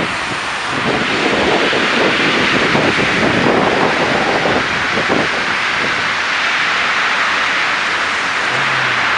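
Street traffic passing through snow and slush: a steady hiss of tyres on the wet road with engine rumble, and wind buffeting the microphone in gusts during the first few seconds. A low engine hum comes in near the end.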